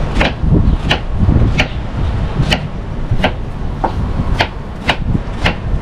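Kitchen knife chopping on a plastic cutting board, cutting green fruit with sharp, evenly paced knocks, about nine strokes, one every two thirds of a second or so. A low rumble runs underneath.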